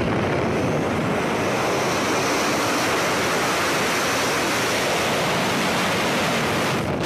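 Steady rush of freefall wind over a BASE jumper's camera microphone.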